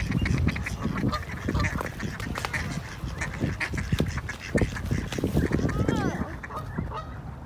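A flock of mallard ducks quacking and chattering in short repeated calls close by, over a steady low rumble.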